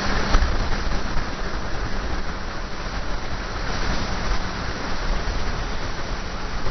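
Motorcycle riding along a road, heard as a steady rush of wind on the bike-mounted camera's microphone with the engine running evenly underneath.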